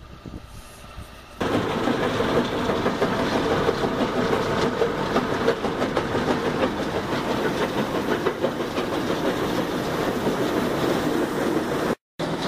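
Rock crusher running with broken ore rattling through its steel feed chute: a dense, steady clatter of rock on steel that starts suddenly about a second and a half in and cuts out for a moment near the end.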